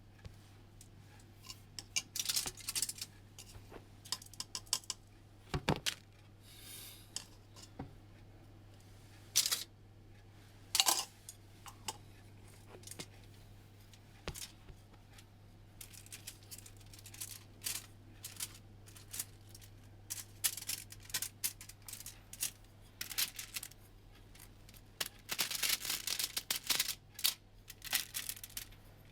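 Light clicks, taps and clatters of kitchen handling at irregular times, busiest about two seconds in and again near the end, over a steady low hum.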